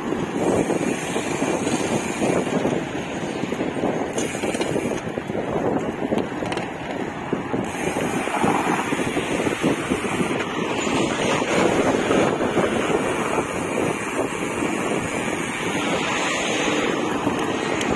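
Wind buffeting the microphone while riding, with the rush of a vehicle and road noise underneath.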